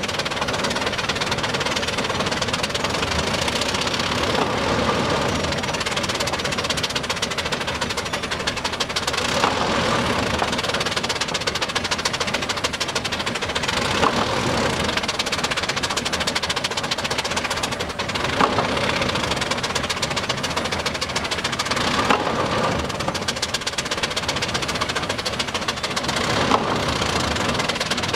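Steam pile driver at work: its steam hoisting engine runs steadily with a rapid beat, and a heavy hammer blow lands on the pile about every four to five seconds.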